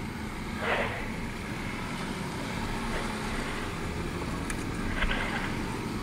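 Motorcycle riding at a steady cruise, heard from the moving bike: engine running under wind rushing over the microphone.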